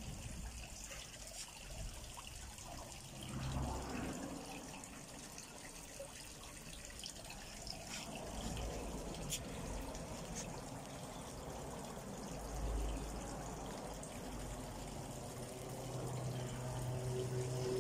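Water trickling steadily in a small fish pond, with a low hum swelling near the end.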